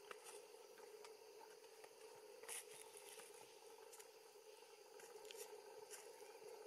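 Near silence: a faint steady hum with a few soft, scattered ticks, the loudest about two and a half seconds in.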